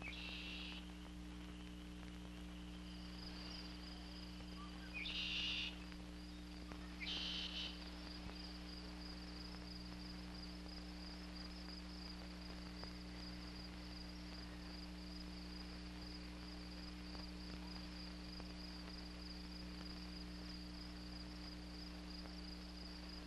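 Insects chirring in a steady, high, pulsing trill that sets in a few seconds in, with three short, louder calls in the first eight seconds. A steady low hum runs underneath.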